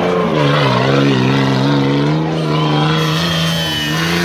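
Engine of a BMW-engined Suzuki Samurai off-road racer running hard at high revs under load; its pitch sags about half a second in, holds steady, then climbs again near the end.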